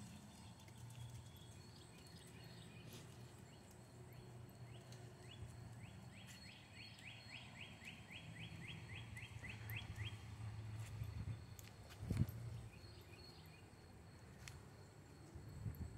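Faint outdoor ambience: a low steady hum, with a run of quick rising chirps from a small animal, about three or four a second, lasting several seconds in the middle. A brief soft knock comes about twelve seconds in.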